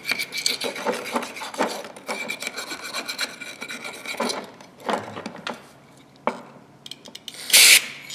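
Small hand wire brush scrubbing dirt and rust off steel locking pliers: a run of quick, scratchy back-and-forth strokes that eases off about four seconds in, followed by a few light clicks and a short loud hiss near the end.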